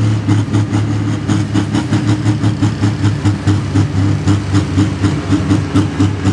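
Large diesel tractor engine idling with a steady, loping pulse, about three to four beats a second.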